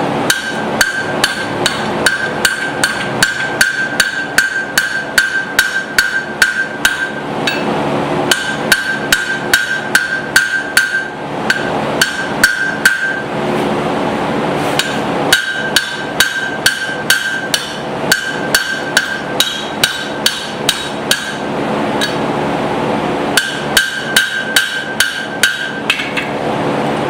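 Cross-peen hammer striking hot steel on an anvil in runs of about three ringing blows a second, with short pauses between runs, over a steady hum. The smith is drawing down the cheeks of a small hammer head.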